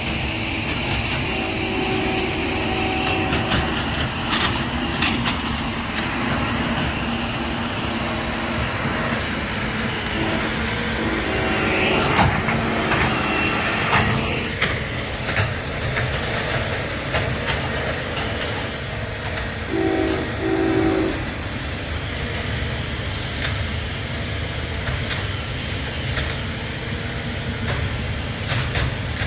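Norfolk Southern freight train rolling past with its diesel locomotives and cars making a steady rumble, and the locomotive horn sounding a few blasts, including two short ones about two-thirds of the way through.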